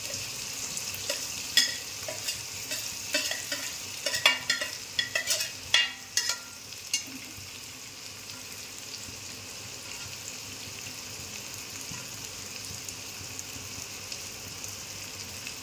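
Sliced onions sizzling as they fry in hot oil in a steel kadhai, a steady hiss. For the first several seconds, metal utensils clink and scrape sharply against the pan and plate.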